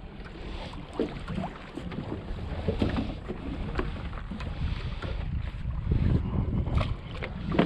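Wind buffeting the microphone and choppy water slapping against a small boat's hull, with occasional light knocks.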